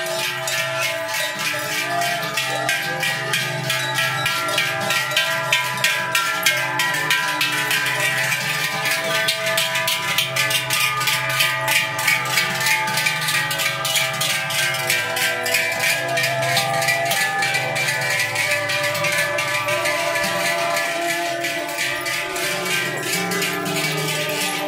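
Many large cowbells hung from the collars of walking cows clang continuously, a dense ringing of many bells at different pitches with strikes overlapping as the herd passes.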